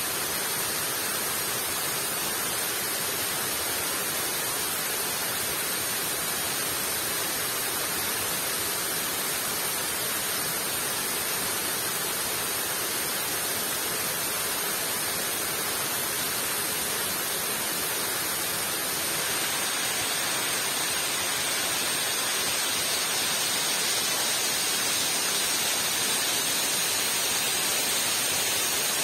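Steady rushing noise of water, even and unbroken, growing a little louder about nineteen seconds in.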